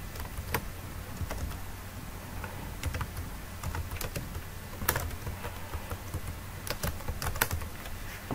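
Computer keyboard keystrokes: irregular clicks as a search query is typed letter by letter, over a faint steady low hum.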